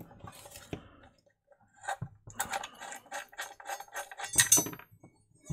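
Run of small clicks and rattles from the screws and metal mounting bracket of an LED floodlight being undone and handled. About four and a half seconds in, a brighter metallic clink rings on briefly.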